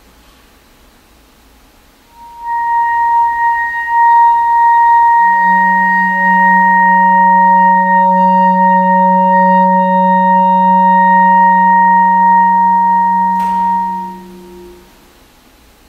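Clarinet and live electronics holding a chord of steady, sustained tones: a high note enters about two seconds in, a low drone and a middle note join about five seconds in, and the chord fades out near the end, just after a sharp click.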